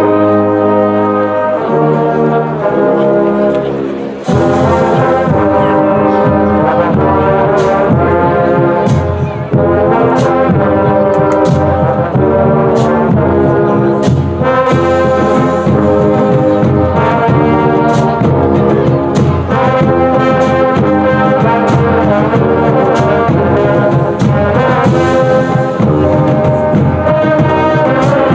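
Brass band music: held brass chords, then about four seconds in a fuller, louder passage starts with a steady drum beat under the brass.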